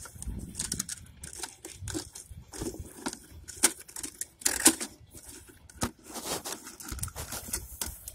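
Thin plastic bottle crinkling and clicking as it is squeezed and worked by hand, an irregular crackle with a few sharper cracks about halfway through.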